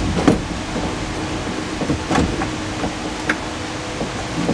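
A few short clicks and knocks as a car's gauge cluster is handled and pushed into place in the dashboard, over a steady background hiss and hum.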